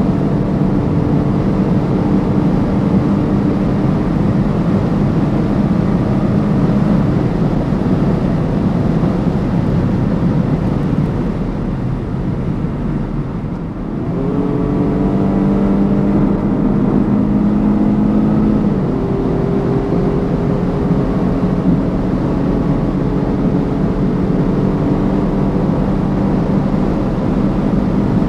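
BMW M135i xDrive engine pulling at high autobahn speed under steady road and wind noise. About halfway through it eases off briefly, then the revs jump up sharply as on a kickdown downshift and climb for a few seconds before dropping at an upshift.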